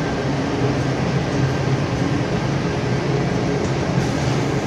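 Caramel popcorn production line running: a steady machine hum with a rushing noise, no breaks.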